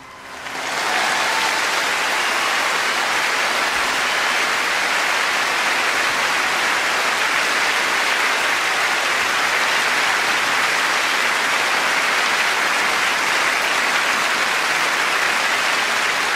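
Large concert-hall audience applauding, swelling up within the first second and then holding steady.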